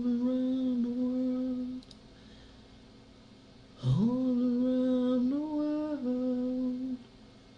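A person humming two long, steady notes with a pause between them. Each note slides up from low at the start, and the second one steps up a little partway through and then drops back.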